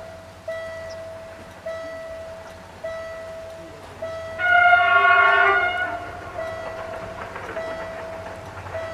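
A level-crossing bell dings about once a second. About four seconds in, a passenger train sounds its horn in one long blast of about a second and a half, and the train's running noise then rises as it comes closer.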